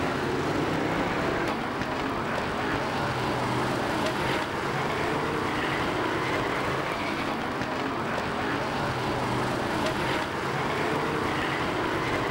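Engines of several winged stock cars racing around the track together, a steady mixed engine noise without breaks.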